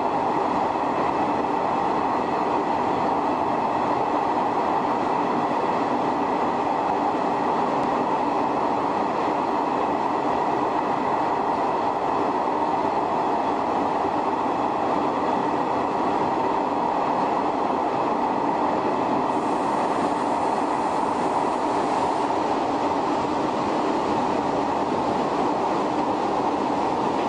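Shin-Keisei 500-series electric train with nose-suspended traction motors running at a steady speed, heard from the cab: a steady multi-pitched motor and gear whine over the rumble of wheels on rail.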